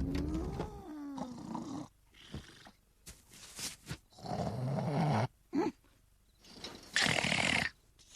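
Exaggerated cartoon snoring from a man asleep: a long pitched snore that rises and falls, then a string of shorter, animal-like snores with quiet gaps between, ending on a hissing breath out.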